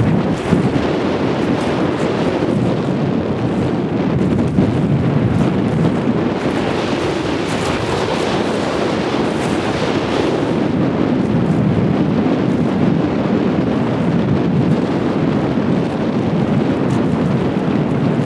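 Heavy wind buffeting the camera microphone: a steady, loud, low rumble of wind noise.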